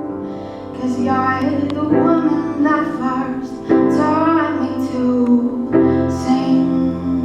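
A female voice singing a slow song, with sustained piano chords underneath.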